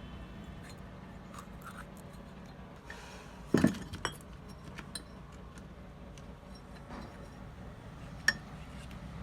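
Metal parts and tools clinking and knocking against one another at a workbench: a few scattered clicks, the loudest knock about three and a half seconds in and another sharp click near the end, over a low steady hum.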